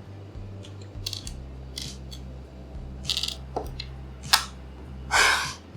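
Clear plastic jigsaw puzzle pieces clicking and tapping against each other and the table as they are handled and tried in place, a handful of sharp clicks followed by a longer scraping sound near the end. A steady low hum runs underneath.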